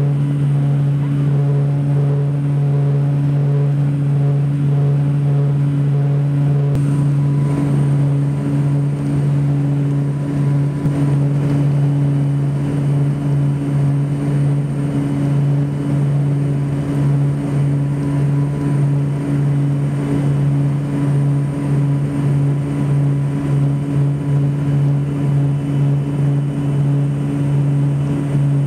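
Turboprop airliner heard from inside the cabin in flight: a steady, loud low propeller drone over engine and air noise, throbbing unevenly in the second half.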